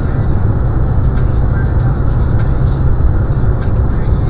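Steady low rumble of a car driving at highway speed, mainly tyre and road noise, heard inside the cabin through a dashcam's microphone.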